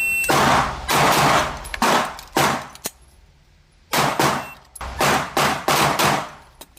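Shot timer beep, then an airsoft gas blowback S&W 5906 pistol fired in quick strings of sharp pops with metallic target hits, broken by a pause of about a second midway.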